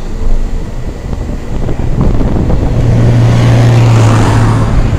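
Bus running on a mountain road, with a tanker truck passing close alongside: from about halfway in, a low steady engine drone and a rush of air swell up, peak near the end and begin to fade.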